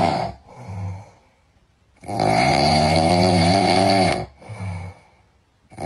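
Loud snoring: two snores with a silent pause between them. The second is a long, rasping, drawn-out snore of about two seconds, and each snore is followed by a short, softer breath.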